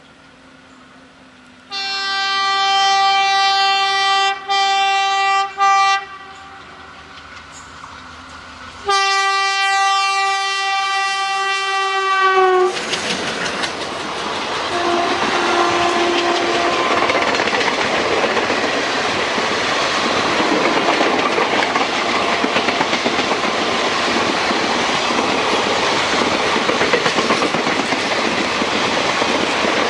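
WDG3A ALCO diesel locomotive sounding its horn: a long blast broken twice briefly, then a second blast a few seconds later that sags in pitch as it cuts off. The train then runs past with a loud steady rush and clickety-clack of wheels over rail joints.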